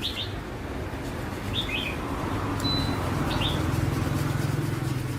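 Small birds chirping briefly, about three times, over a low, steady machine hum that grows louder about halfway through.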